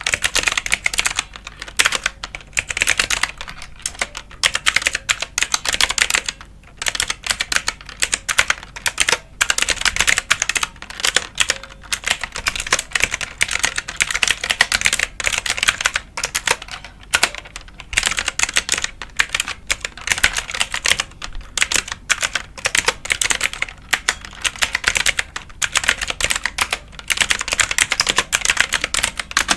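Computer keyboard being typed on: a rapid, continuous stream of key clicks with a brief pause about six seconds in.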